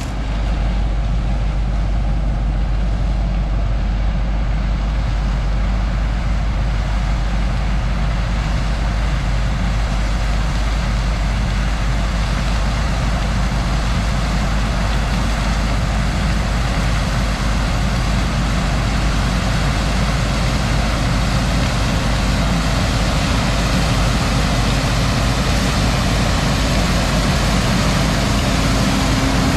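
Old farm truck's engine running steadily, with a strong low rumble and a steady hum.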